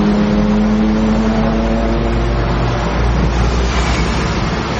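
Loud car engine and exhaust running steadily at a low, even speed, a droning note over a deep rumble; the drone fades a little past halfway, leaving mostly the rumble.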